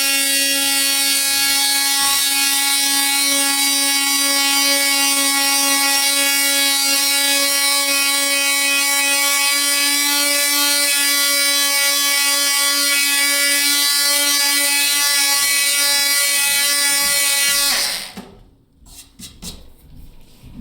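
Ryobi 18V cordless oscillating multi-tool with its sanding pad, running at maximum speed and sanding a surface: a steady, even buzz that holds one pitch. It cuts off suddenly about 18 seconds in, followed by a few faint handling knocks.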